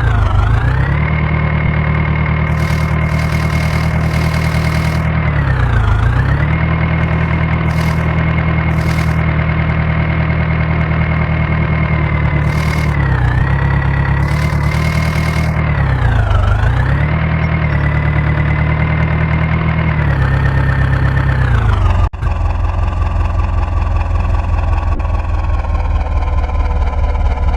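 Diesel engine of a tractor or backhoe loader running at high revs, its pitch dipping and recovering four times. About 22 s in, the sound changes abruptly to a steadier engine at a lower pitch.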